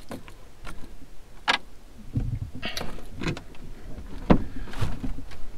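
Snap fasteners popped open and a strap tugged on a pop-up truck camper's roof panel: a few irregular sharp clicks and soft knocks, the sharpest a little after four seconds in.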